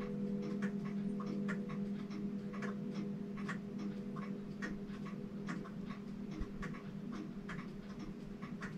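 Pendulum movement of a German bim-bam grandfather clock from about 1915 ticking about twice a second. A low ringing tone fades slowly underneath: the dying ring of its chime rods after striking.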